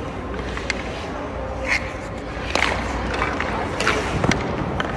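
Hockey sticks and pucks clicking and knocking on the ice, several sharp hits about a second apart, along with the scrape of skates, over a steady low rink hum.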